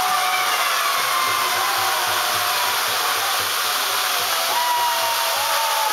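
A congregation's many groggers (ratchet noisemakers) whirled together in a loud, steady rattling din, with a few higher tones sounding over it. This is the Purim noise made at Haman's name during the Megillah reading to blot it out.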